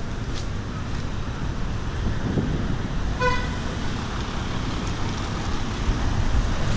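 Road traffic passing with a steady rumble, and a single short car horn toot about three seconds in.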